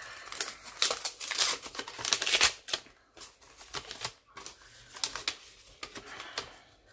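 A paper envelope being torn open and handled, crackling and ripping loudest in the first two and a half seconds, then quieter scattered paper rustles.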